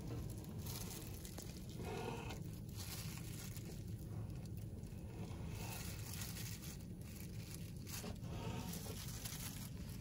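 Knife slicing through raw tuna on a plastic cutting board, with the crinkle of a thin plastic glove, over a steady low hum. Two brief pitched squeaks, about two seconds in and again about eight seconds in.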